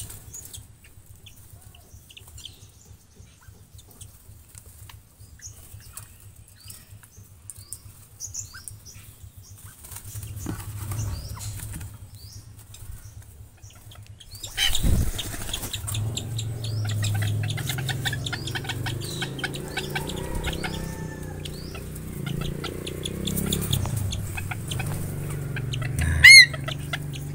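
Birds in an aviary flapping and fluttering, with scattered short chirps. About halfway through there is a sudden knock, then a louder stretch of flapping and scuffling, and near the end a loud high call.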